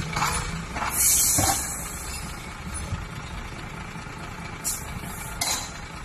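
Dump truck engine idling, with a loud hiss of released air about a second in and two shorter hisses near the end.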